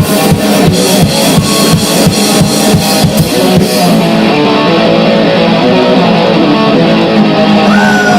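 Grind-noise band recording: distorted electric guitar over a drum kit hitting hard about three times a second. About halfway through the drums drop out, leaving the guitar droning alone, and near the end a high gliding tone slides downward.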